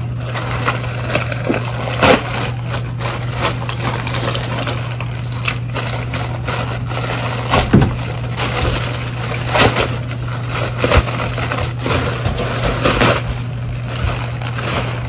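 Plastic packaging and clothing being handled, crinkling and rustling irregularly with a few sharper crackles, over a steady low hum.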